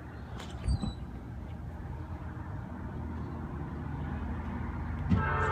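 Low engine rumble of approaching vehicles growing steadily louder, with a thump about a second in. Near the end a locomotive's multi-tone air horn starts to sound.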